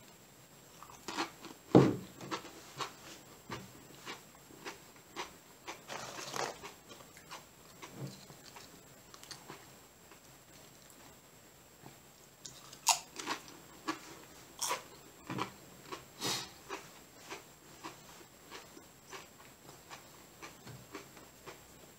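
A person biting and chewing a crunchy corn tortilla chip topped with salsa, close to the microphone. The sharpest crunch is the bite about two seconds in, followed by many small crackling crunches of chewing, a lull in the middle, then louder crunching again.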